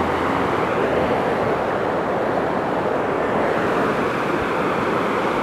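Mudflow: muddy floodwater rushing down a rocky river bed in a steady, unbroken rush.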